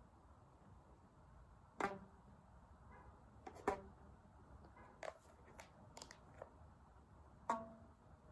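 A rubber band stretched around a book over a cup, a homemade book fiddle, plucked about seven times at uneven intervals. Each pluck is a short, low twang that rings briefly and dies away.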